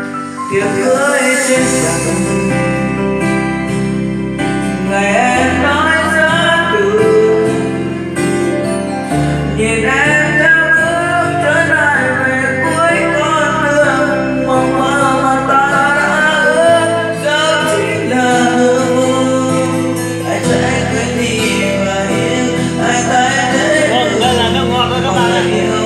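Karaoke backing music of a ballad, with long bass notes that change every few seconds under a wavering melody line.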